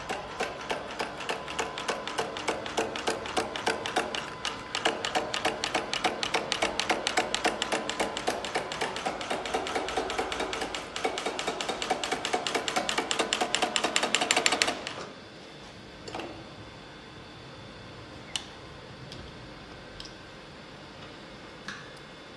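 Mekval shoe sole side-stitching machine running, making a fast, even clicking as it stitches; it stops abruptly about 15 seconds in, after which only a few faint single clicks are heard.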